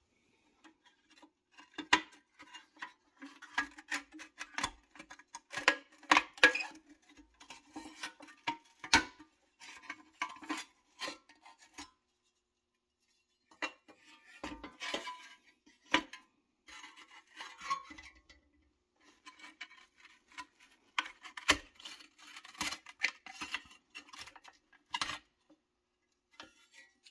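Rusty pressed-steel bed of a Tonka toy pickup being handled and its tailgate worked loose: irregular light metal clinks, taps and scrapes, with a short pause a little before the middle.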